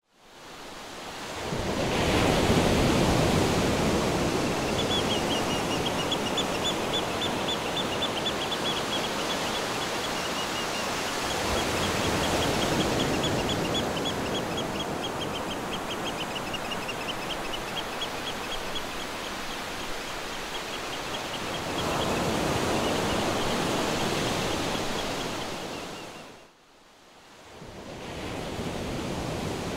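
Ocean surf washing on the shore, swelling and easing about every ten seconds, with a high, rapid chirping running over it for most of the time. It fades out near the end.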